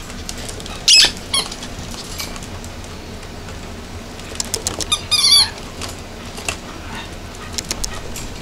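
Toy-breed puppies yipping while they play-wrestle: a short, high yip about a second in and a louder cluster of high yips around five seconds in, with light clicks between.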